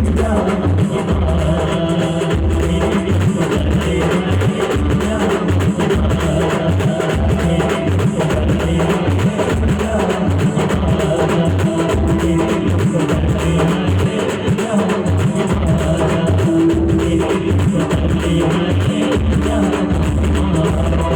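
Star band music: a steady, heavy drum beat under a sustained melody line, with some singing.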